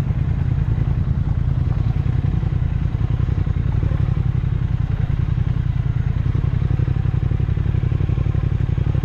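Triumph Speed Twin 1200's parallel-twin engine running steadily on a rough dirt track, with an even, rapid pulse of firing strokes.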